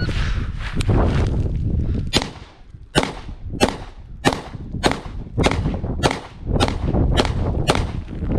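Wilson Combat EDC X9 9mm pistol firing a string of ten shots of Black Hills 115-grain EXP hollow points. The first shot comes about two seconds in, the rest follow about every 0.6 s, and the report sounds beefy. Wind rumbles on the microphone throughout.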